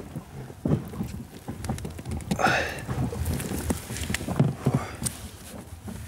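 Irregular wet patter and small knocks, with a brief splash about two and a half seconds in: water dripping and splashing.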